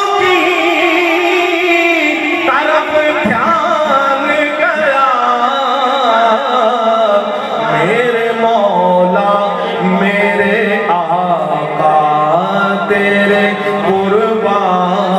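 A man singing a naat, an Urdu devotional poem, solo into a microphone, his melody wavering and ornamented. A low steady drone comes in underneath about halfway through.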